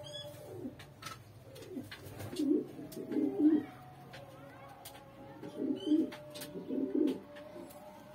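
Domestic pigeons cooing: low, rolling coos in two bouts, starting about two seconds in and again about five and a half seconds in.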